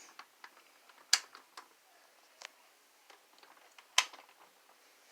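Scattered small clicks and taps of hard objects being handled, with two sharper clicks about a second in and about four seconds in.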